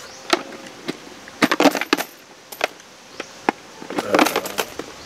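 Coins dropped into a large plastic bottle already holding many coins, clinking as they land: single clinks early and around the middle, and quick clattering runs of several coins near two seconds and near four seconds in.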